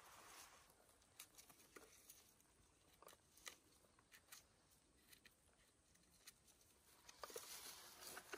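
Near silence with faint, scattered clicks and crackles; a louder rustling starts near the end.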